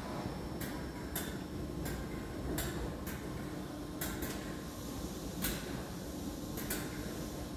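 Merseyrail electric multiple unit standing at an underground platform: a steady electrical hum with a faint whine, and irregularly spaced sharp clicks about once a second.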